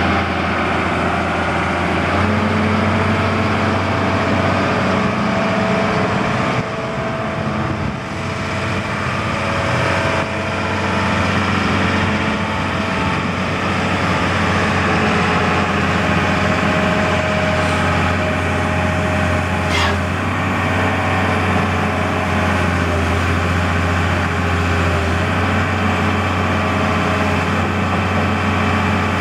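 Caterpillar 325BL hydraulic excavator's diesel engine running steadily as the machine tracks and swings. Its low drone shifts a few times as the load changes.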